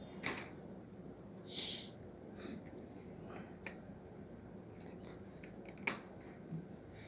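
Plastic nebulizer and ventilator circuit parts being handled and pushed together: a few sharp clicks and a short rustle over a low steady background.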